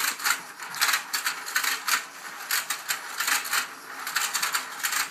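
Battery-powered toy fishing game running, its rotating plastic pond and opening-and-closing fish mouths making a rapid, irregular clicking clatter of several clicks a second.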